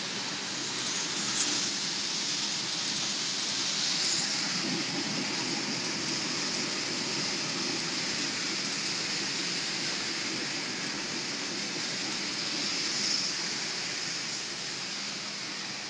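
Pet food production line machinery running: a steady hiss with a low hum underneath.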